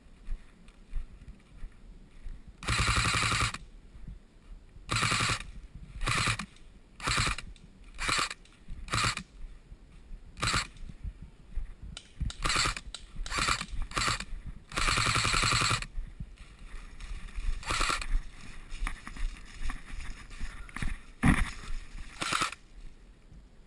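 Airsoft electric gun, an ASG MP5, firing in full-auto bursts: a burst of about a second near the start, many short bursts, and another burst of about a second midway.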